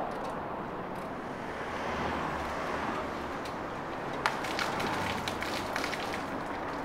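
Steady outdoor background noise. About four seconds in, a sharp click, then liquid pours from a jerry can and splashes and spatters onto a hand and the paving for about two seconds.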